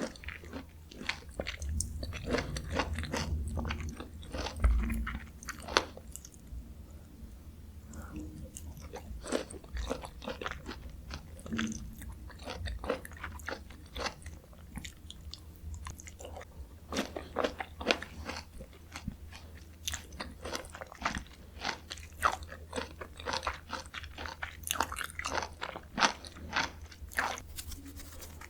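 Close-miked chewing and biting of Jeju mandarin orange segments: a dense run of short clicks throughout, with a heavier low thump about five seconds in.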